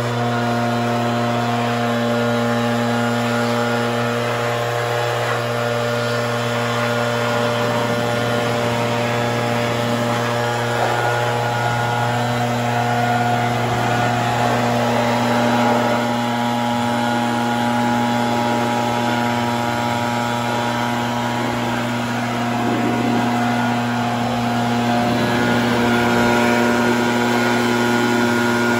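Gas backpack leaf blower running steadily at a constant speed, blowing water off a freshly washed car to dry it.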